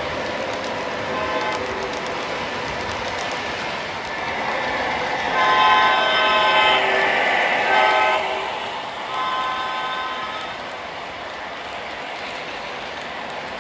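O gauge model CSX diesel locomotive's sound system blowing its multi-note horn: a short blast, then a long one, a short one and another long one, over the steady rolling noise of the model train running on the track.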